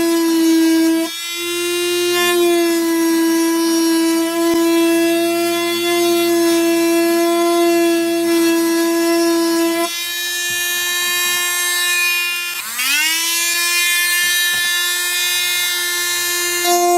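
Small power tool's electric motor running with a steady high whine while the guitar saddle is shaped. The whine dips briefly about a second in and drops lower around ten seconds, then rises back up to full speed near the end.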